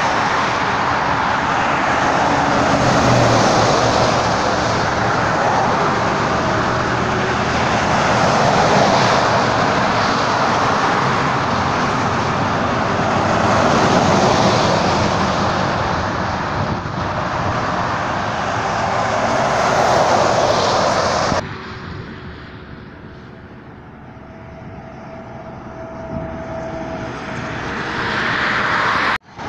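Highway traffic passing close by: heavy trucks and cars go by one after another, the tyre and engine noise swelling with each pass every five or six seconds. About two-thirds of the way through it drops suddenly to a quieter, more distant traffic hum that slowly builds as vehicles approach.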